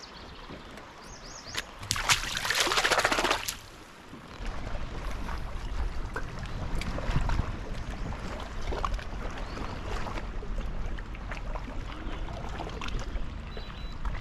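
Lake water lapping against a kayak hull, with a steady low rumble of wind on the microphone. About two seconds in, a loud rushing noise lasts about a second and a half.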